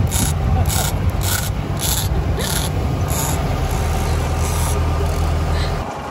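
Big-game fishing reel rasping in regular strokes, about one and a half a second, as a marlin is fought on the line, over the steady low rumble of the boat's engine, which drops away near the end.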